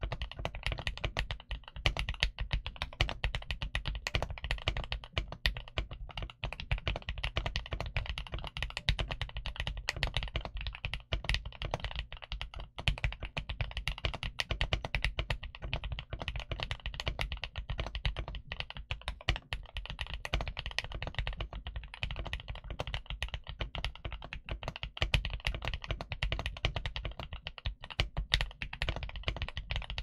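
Steady, fast typing on a GMK67S mechanical keyboard with Gateron Ultra Glory Pro Yellow switches and Womier DS PBT keycaps: a dense, unbroken run of thocky keystrokes.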